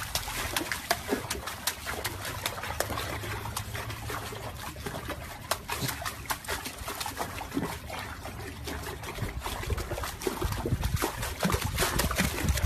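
Pool water splashing and slapping as a golden retriever puppy paws at it again and again from the edge: an uneven run of small, quick splashes.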